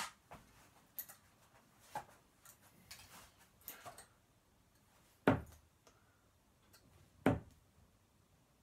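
Two 24 g long-point darts striking a dartboard about two seconds apart, each a sharp thud, after a few faint clicks of the darts being handled.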